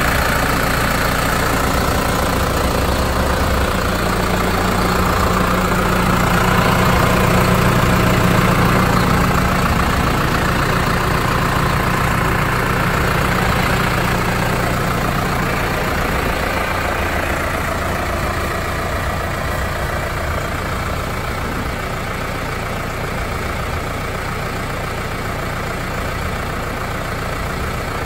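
Case IH JXU 95 tractor's diesel engine idling steadily, fading a little over the second half.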